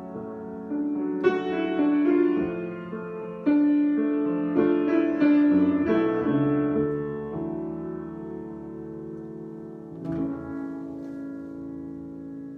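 Solo piano improvisation: chords and melody notes struck and sustained, slowing, with a last chord struck about ten seconds in and left to ring and fade.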